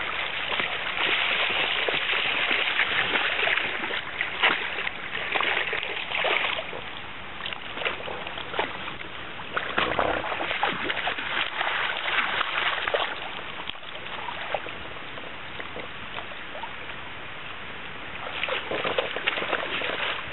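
A dog wading and splashing in a shallow river, with irregular sharp splashes and sloshing over the steady rush of the flowing water. The splashing is busiest in the first few seconds, again about halfway through, and near the end.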